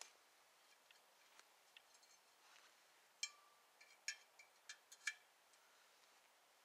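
Parts of a small perforated metal camp stove being handled and fitted together: a few light ticks, then four sharp metal clicks and clinks a little past the middle, the first leaving a brief ring.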